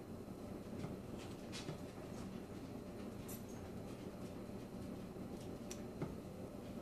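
Faint scrapes and clicks of a metal cookie scoop against a metal saucepan as thick no-bake cookie mixture is scooped out, over a low steady hum.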